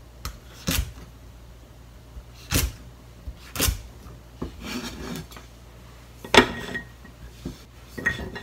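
Kitchen knife cutting through garlic sprouts onto a plastic cutting board: a handful of separate sharp knocks at uneven spacing, the loudest about six seconds in.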